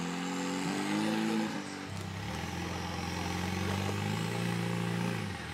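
Rock crawler buggy's engine under load on the rocks. It revs up over the first second and a half, then runs steady at lower revs for about three seconds before dropping off near the end.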